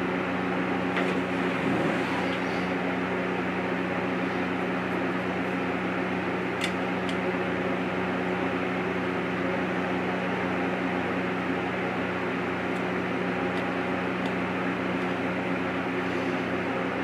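Steady low hum with hiss, unchanging throughout, with a few faint clicks.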